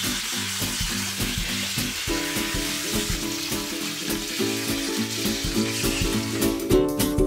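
Water hissing steadily from a hose spray nozzle as it rinses a small dog's wet coat, with background music whose plucked notes come up louder near the end as the hiss fades.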